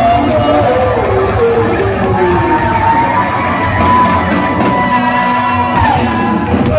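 Rock band playing live in a large hall, guitars and drums with vocals; a long high note is held through the middle and slides down near the end.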